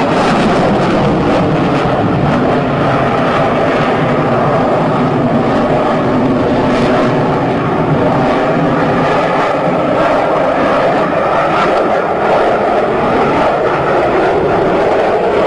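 Fighter jet engine noise, loud and steady, with a few faint held tones running through it.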